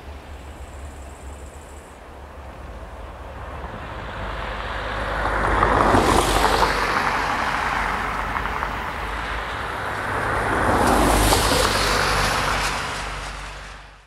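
Rolling vehicle noise that builds from about four seconds in, swells to a peak twice, around six and eleven seconds, then fades out at the end.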